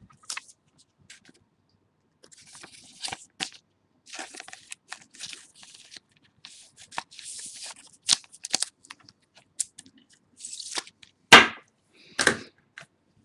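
Trading cards and plastic card sleeves being handled: soft rustling and sliding, with scattered light clicks and taps, and two sharper knocks near the end.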